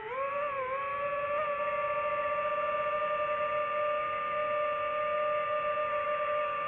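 DJI FPV drone's propellers and motors whining: a pitched whine made of two close tones, which wavers upward in the first second and a half and then holds steady.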